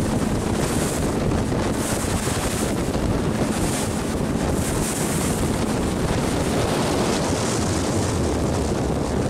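Wind buffeting the microphone and water rushing past a motorboat running at speed across open sea. The engine hums faintly and steadily through the first half, and a high hiss of water swells and fades about once a second.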